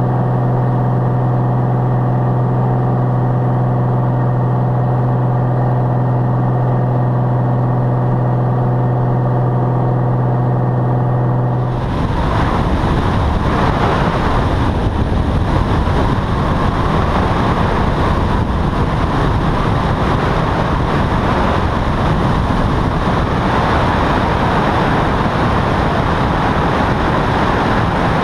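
Light aircraft cruising: a steady engine-and-propeller drone with a strong low hum. About twelve seconds in it cuts abruptly to a loud, even rush of wind and engine noise from a camera mounted on a Van's RV-12's wing as it comes in over the runway to land.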